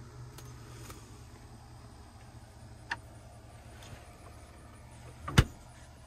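Compressor of a Midea 115-volt compact refrigerator running with a quiet, steady low hum after the thermostat is set to max. A small click about three seconds in, and a loud thump near the end as the refrigerator door is shut.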